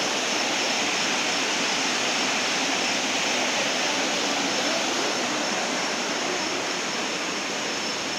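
Waterfall rushing steadily: a dense, even noise of falling water with no breaks.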